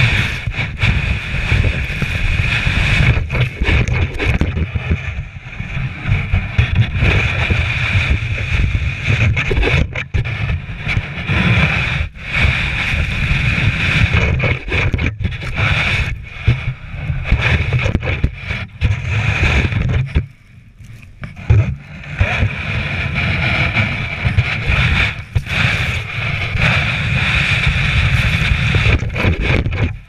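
Snow shovel scooping and pushing deep snow, heard through a camera mounted on the shovel itself: a constant low rumble of handling noise and wind on the microphone, with a short lull about two-thirds of the way through.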